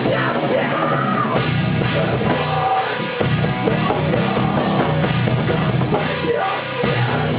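Loud rock music with drums and a singing or yelling voice, heavily distorted.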